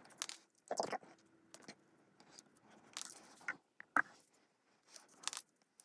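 Faint, scattered clicks and scrapes of hands handling an Apple HomePod Mini and the small plastic covers on its top, pried up with a nylon spudger; one sharper click comes about four seconds in.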